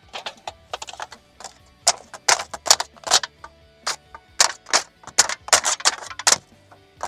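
A rapid, irregular run of sharp clicks and taps with brief metallic rings: hands and tools working at metal roof flashing and shingles.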